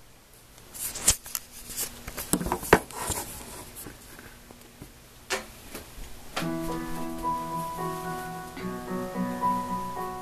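Scattered clicks and knocks for about the first six seconds. Then, from about six seconds in, a piano plays sustained chords as the introduction to the song.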